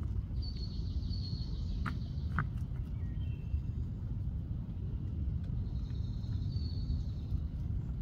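Outdoor ambience: a low, steady background rumble, with a bird's thin, high call twice, once near the start and again past the middle. A few faint clicks sound around two seconds in.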